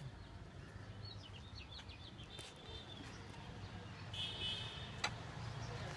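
Small birds chirping faintly, short scattered chirps with one held high note about four seconds in, over a faint steady low hum; a single sharp click about five seconds in.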